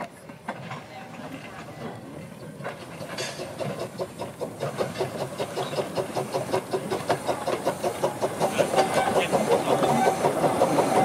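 An 1885 Couillet 0-4-0 tank engine, a small narrow-gauge steam locomotive, chuffs along with a fast, even beat and a hiss of steam, getting steadily louder as it draws near and passes. A steady ringing tone joins in over the last few seconds.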